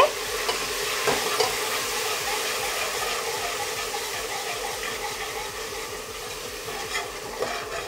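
Ginger-garlic paste and browned onions sizzling gently in oil on a low flame in an aluminium pressure cooker, stirred with a steel ladle that clicks against the pot a few times.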